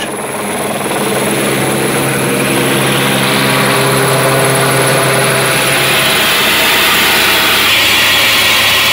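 Light turbine helicopter lifting off and flying: steady rotor thrum with a high turbine hiss. It grows louder over the first couple of seconds, then holds steady.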